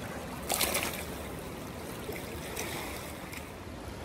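River water running and trickling along a rocky bank, a steady wash, with a brief rustle about half a second in.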